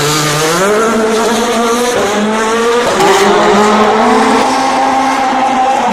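Rally car engine accelerating hard, its note climbing and dropping back at gear changes about two and three seconds in, then held at high revs near the end.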